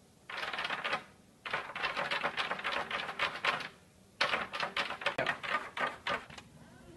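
Hard plastic fursuit claws scratching and clacking rapidly against a closed room door, in three bursts with short pauses between them.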